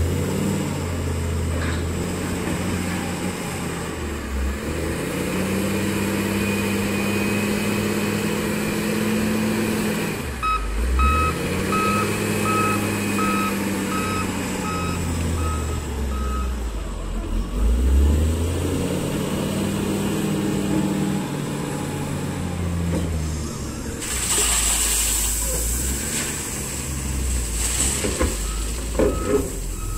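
Komatsu wheel loader's diesel engine revving up and falling back over and over as it works, with its reversing alarm beeping steadily for several seconds in the middle. Near the end the bucket tips gravel into the steel dump-truck body: a rushing hiss with stones rattling against the bed.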